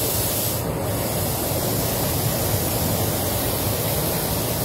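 Steady rushing air in a paint spray booth, with a short hiss from a gravity-feed spray gun about a second in.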